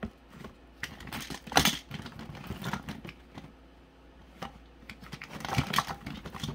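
Rummaging through a medicine cabinet: small containers and packets clattering and rattling in irregular bursts, loudest about one and a half seconds in and again a second before the end.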